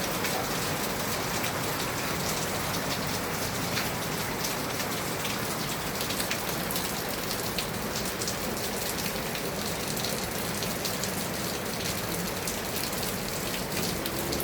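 Heavy rain falling steadily, a constant hiss with many small drop patters on surfaces.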